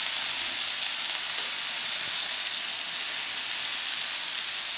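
Halved potatoes, diced pumpkin and lemon slices sizzling in olive oil on a hot flat griddle plate: a steady frying hiss.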